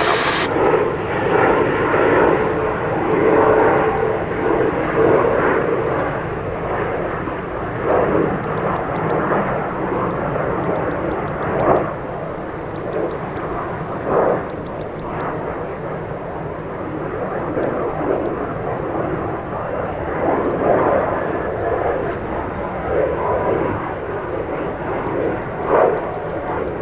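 Jet noise from an AMX's single Rolls-Royce Spey turbofan as the jet flies past with its landing gear down on approach. The sound is a steady, dense rush that pulses slightly and gradually gets quieter over the first half.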